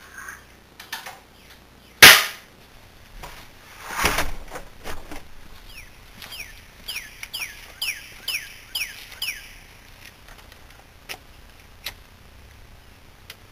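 A single sharp, loud crack about two seconds in, then a rougher noisy burst around four seconds. A bird calls a run of about seven quick downward chirps, roughly two a second, and two small clicks follow near the end.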